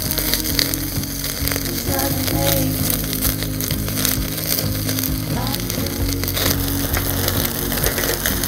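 Continuous sizzling crackle with frequent sharp pops, over background music with sustained low notes.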